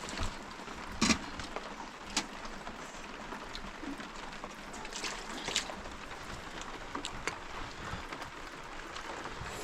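Steady hiss of rain falling, with a few scattered sharp taps of drops.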